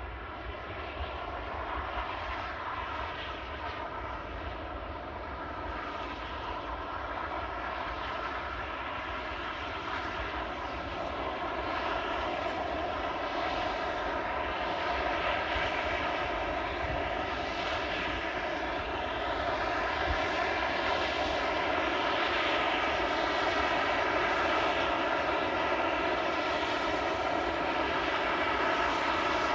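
A steady engine drone with several even tones, growing gradually louder.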